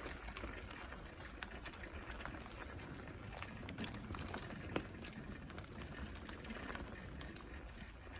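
Bicycle tyres rolling over a gravel and dirt path: a steady crackling hiss with scattered small clicks and rattles, one sharper click about halfway through, over a low rumble.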